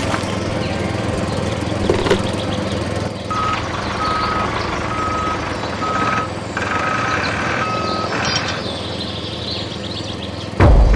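A steady motor hum, joined about a third of the way in by a repeating high electronic beep like a vehicle's reversing alarm, about one beep every three-quarters of a second. A loud low thump comes near the end.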